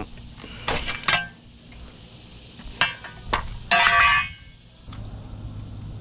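Sharp clicks and knocks of plastic and metal car parts being pried and pulled loose by hand, with one louder, ringing metallic clatter about four seconds in.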